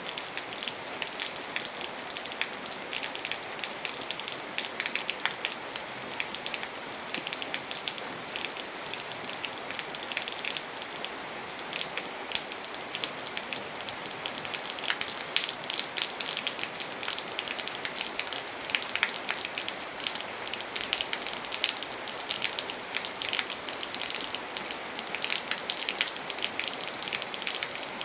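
Steady rain falling, a continuous hiss with many individual drops ticking sharply on a hard surface.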